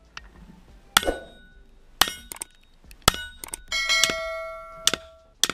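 Steel targets struck by rifle fire: about six sharp clangs roughly a second apart, each followed by the plate ringing. One strike near the end rings for about a second.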